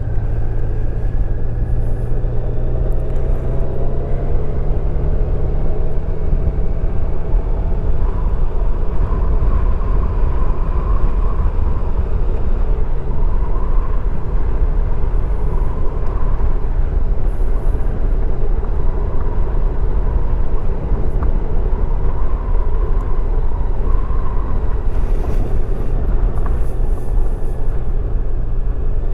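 Motorcycle ridden slowly along a paved road: a steady, loud low rumble of engine and road noise.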